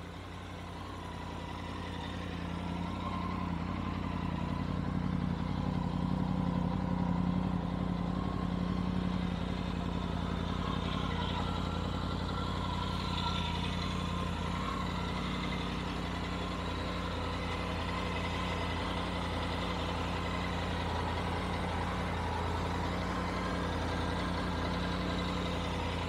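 Triumph Tiger 900 Rally Pro's three-cylinder engine idling steadily, growing louder over the first few seconds and then holding an even note.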